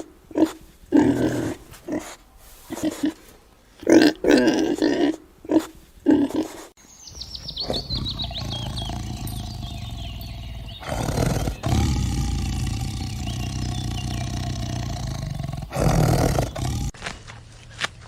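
Animal calls: a run of short, loud grunting calls over the first six seconds or so, then a change to a steady low rumble with a quick falling run of high chirps, and two louder roar-like calls about eleven and sixteen seconds in.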